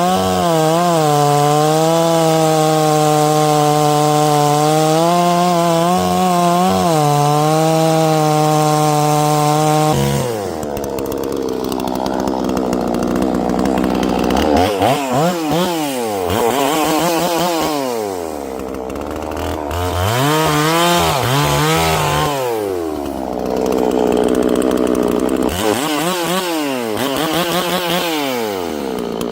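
Holzfforma G466 76.5cc two-stroke chainsaw running at high revs, holding a steady pitch with slight dips for about ten seconds. After that it is revved up and down several times, the engine note rising and falling in sweeps.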